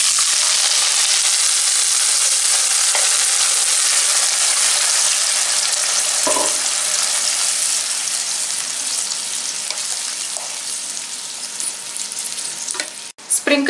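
Tomato and red chili paste sizzling loudly as it is poured into hot oil with fried garlic in a pan, then stirred with a wooden spatula. The sizzle slowly dies down over the last few seconds as the paste settles in the pan.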